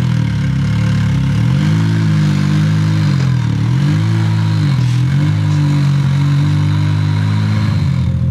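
Can-Am Maverick X3's turbocharged three-cylinder engine running just after starting, its revs rising and falling gently a few times in the first five seconds, then settling to a steady idle.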